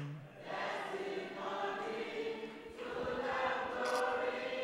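Congregation singing a gospel worship chorus together, voices holding long notes.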